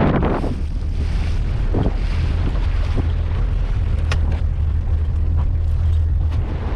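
Wind buffeting the microphone aboard a small fishing boat, with a steady low rumble and a few light knocks.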